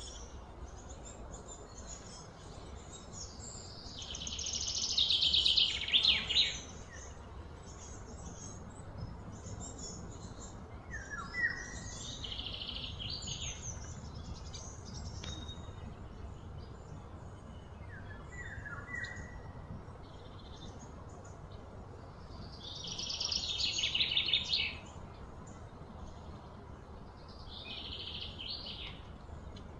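Outdoor ambience of high-pitched calls from wild birds and insects. Twice, a loud, fast-pulsing high call swells over a couple of seconds and then cuts off, with a few shorter calls and brief falling chirps in between, over a steady low background hum.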